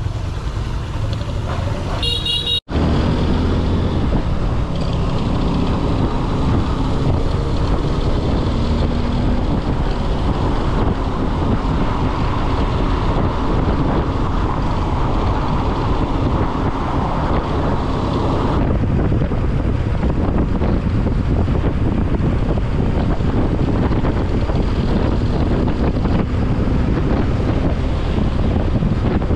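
Honda XR150 motorcycle riding through traffic: a steady engine note mixed with wind rush on the camera mic. A short horn toot sounds about two seconds in, just before a brief cut, and the rush turns duller about two-thirds of the way through.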